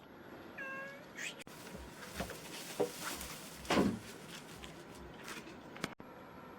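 Domestic cat giving a short meow about half a second in, followed by a few seconds of rustling and knocks, loudest around four seconds in.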